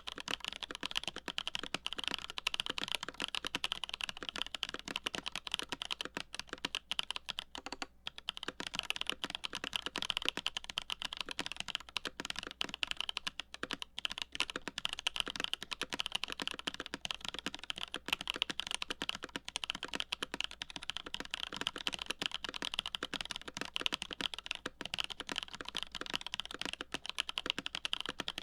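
Continuous typing on a CA66 mechanical keyboard with lubed Holy Boba tactile switches, a full aluminium plate and GMK Café keycaps: a dense, fast run of key clacks, with brief pauses about 8 and 14 seconds in.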